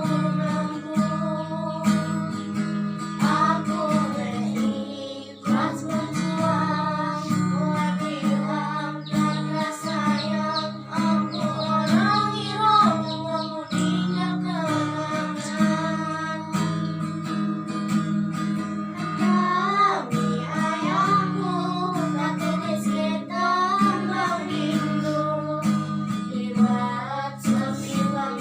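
A female singer singing a melody with wavering, ornamented held notes over a steady instrumental accompaniment.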